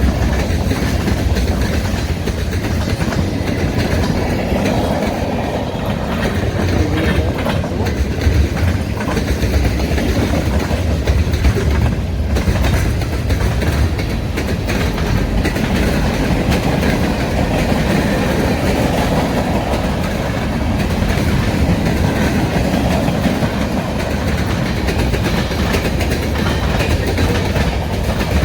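Freight train cars rolling steadily past, their wheels clacking over the rail and banging across half-inch breaks in the cracked rail.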